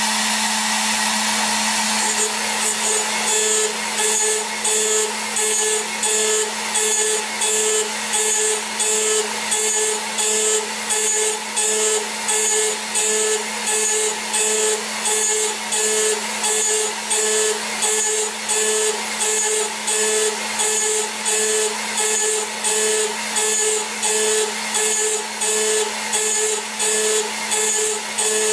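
CNC mill spindle running steadily at 13,000 RPM while a 3 mm cutter makes a roughing pass in soft metal. From about two seconds in, the cutting noise rises and falls in a regular rhythm, about once a second, as the tool sweeps back and forth through the stock at 3.3 m/min.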